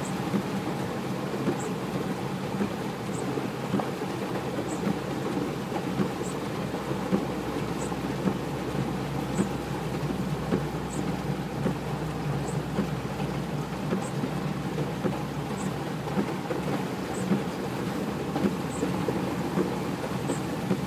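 Heavy rain on a Suzuki Jimny's roof and windscreen, heard from inside the cabin, over the steady running of its engine and water swishing under the wheels as it wades through a flooded road. A faint high tick repeats about every second and a half.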